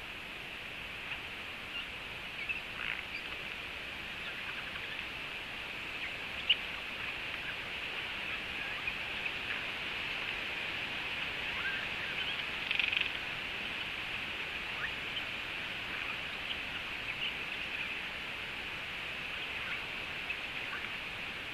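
Eurasian jay making scattered short, odd calls and clicks over a steady hiss, with a sharp click about six and a half seconds in and a brief louder burst around thirteen seconds.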